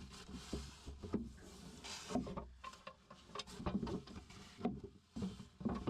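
Sawdust being wiped off a sanded wooden desk surface: irregular rubbing and scraping strokes with a few light knocks on the wood.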